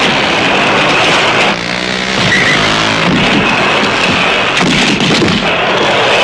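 Vehicle engines racing over a loud, steady din, with an engine revving up about a second and a half in.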